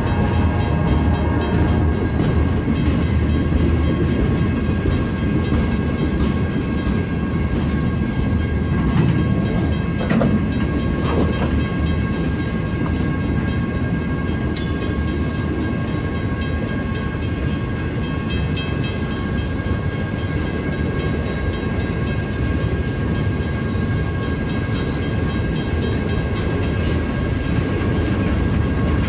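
Loaded flatcars of a military freight train rolling past: a steady rumble of steel wheels on rail, with a thin, steady high whine running over it.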